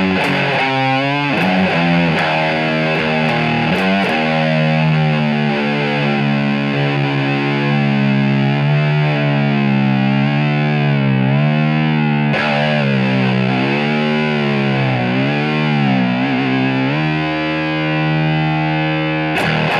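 Ibanez S470 electric guitar played through heavy distortion and effects. A few quick notes lead into a long held note that is bent up and down in pitch for several seconds, then settles into a steady sustained note.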